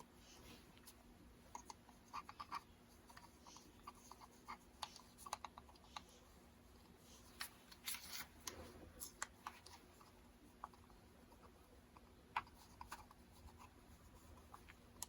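Near silence with faint scattered clicks and taps from handling a tiny Coby CX50 pocket radio and pressing its controls; the radio itself gives no sound, because wires to its speaker broke when it was screwed back together.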